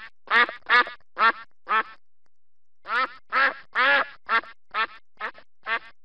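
Duck quacking, about two quacks a second: a run of five, a pause of about a second, then a run of seven more.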